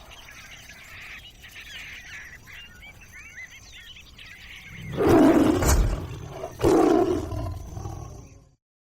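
Faint bird chirps over jungle ambience, then two loud big-cat roars, the first about five seconds in and the second about a second and a half later, cutting off into silence near the end.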